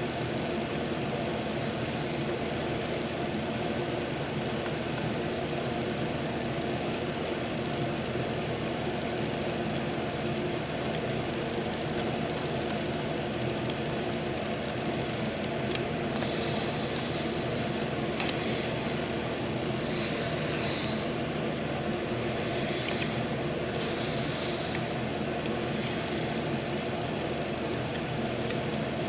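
Steady machine hum like a small fan, with a few short hisses about two-thirds of the way through.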